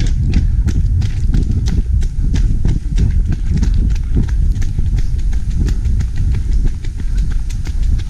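Running footsteps pounding down a rocky dirt trail in quick, even strides, with wind rumbling on the microphone of a camera carried at running speed.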